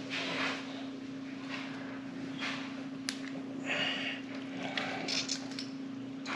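Hands pressing and bending a whole lingcod on a granite countertop, scattered soft wet handling sounds and a click as the fish, stiff with rigor mortis, is worked straight. A steady low hum runs underneath.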